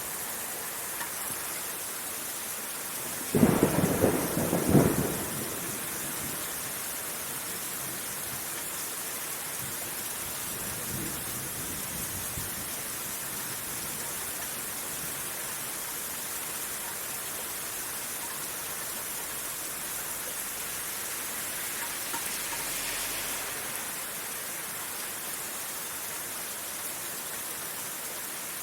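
Steady rain falling, with a loud clap of thunder about three and a half seconds in and a fainter rumble of thunder around eleven seconds.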